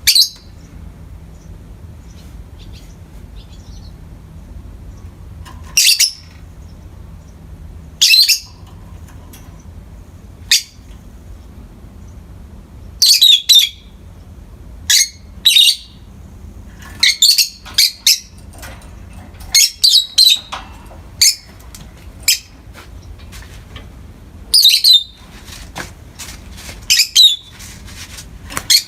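Peach-faced lovebirds giving short, shrill chirps: single calls a few seconds apart at first, then quicker clusters of calls through the second half, over a steady low hum.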